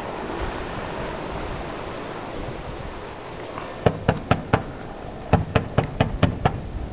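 Helicopter gunship's gun firing live rounds in two short bursts, about four shots a second: four shots about four seconds in, then six more a moment later, over a steady rush of wind and engine noise.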